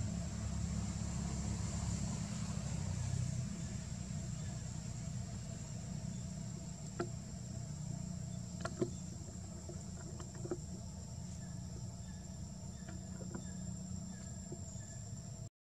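Steady high insect chirring over a low, steady rumble, with a few faint clicks scattered through the second half; the sound cuts out for a moment near the end.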